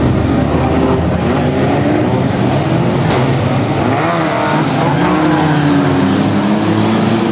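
A pack of old saloon stock cars racing together, several engines revving at once with pitches rising and falling as they pass close by. A short sharp knock comes about three seconds in.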